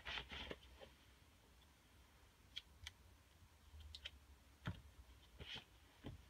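Faint, scattered clicks and light handling noises as a small knife blade, its etching stencil and an alligator clip are handled and set down on a paper towel, over a low hum. The sharpest click comes right at the start, with a few more spread through the rest.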